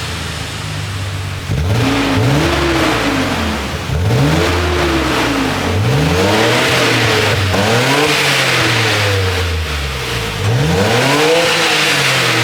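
Nissan Skyline GT-R R32's RB26DETT twin-turbo straight-six idling and revved about five times, each rev rising and falling back to idle.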